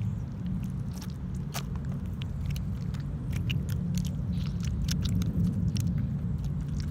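Homemade slime with dirt mixed in being squeezed and kneaded by hand, giving irregular sticky clicks and crackles, over a steady low rumble.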